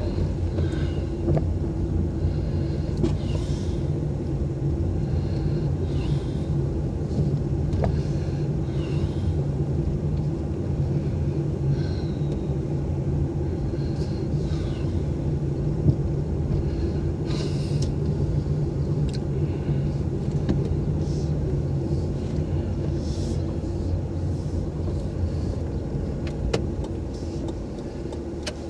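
Car engine and road noise heard from inside the cabin while driving slowly, a steady low hum with scattered light clicks and rattles. It eases off slightly near the end as the car slows.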